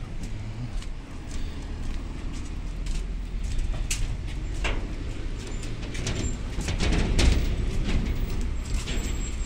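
Outdoor street ambience: a steady low rumble of traffic, with footsteps and scattered sharp knocks, which come thicker in the middle of the stretch.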